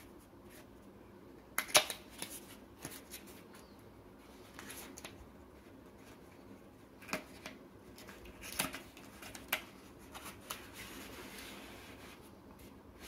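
Thin cardboard packaging being handled: the end flap of a small box is pried open and the inner tray slid out, giving sharp snaps and clicks, the loudest just under two seconds in, and soft scraping rustles as the card slides.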